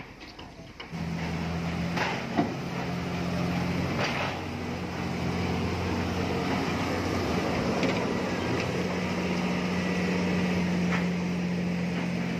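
JCB wheel loader's diesel engine running steadily, coming in about a second in, with a few metallic clanks over its first few seconds.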